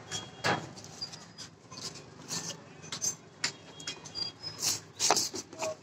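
Hands handling a cardboard shipping box, tapping, sliding over it and picking at its packing tape: an irregular run of short scrapes and knocks, the loudest about five seconds in.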